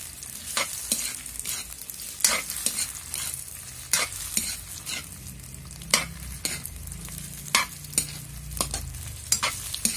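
A metal spatula scraping and tapping against a wok as squid balls, onion and garlic are stirred in hot oil, in irregular strokes about twice a second over a steady frying sizzle.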